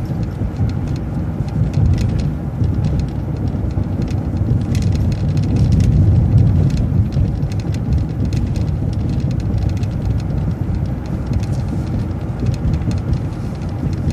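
City transit bus driving along the road, heard from inside the cabin: a steady low engine and road rumble with light rattles and clicks, swelling slightly about six seconds in.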